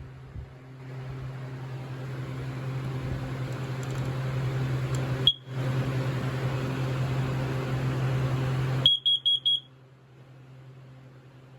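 A steady hum with a rushing noise builds over several seconds and is broken once by a short high beep. The hum then cuts off suddenly as a smoke alarm's horn gives four quick high-pitched beeps.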